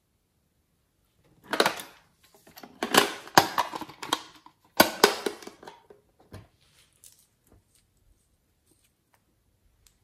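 Glass nail polish bottles and their screw caps handled: a run of sharp clicks, clinks and clatter for a few seconds, then a few faint ticks.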